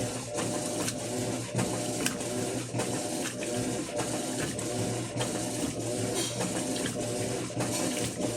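Electrolux LF10 top-loading washing machine agitating a load of blankets: the motor whirs back and forth in a regular rhythm, with water sloshing in the drum.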